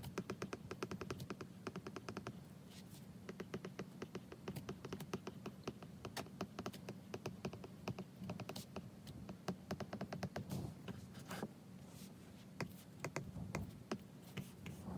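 Apple Pencil tip tapping and scratching on an iPad's glass screen during handwriting: quick runs of small clicks with short pauses between strokes, over a faint steady low hum.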